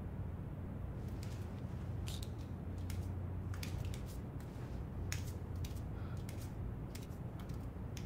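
A low steady hum with irregular sharp clicks and crackles scattered through it, about a dozen or more, coming closer together in the middle.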